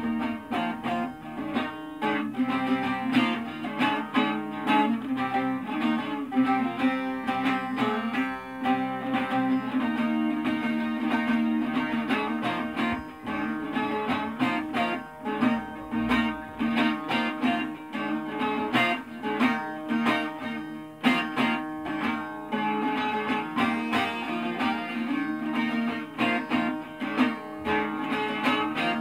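Two bağlamas (long-necked Turkish saz lutes) playing an instrumental passage of a Turkish folk song, with fast plucked and strummed strokes throughout.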